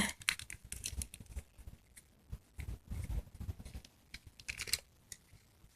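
Quiet, irregular clicks and rustling of an object being handled close to the microphone, in several short clusters.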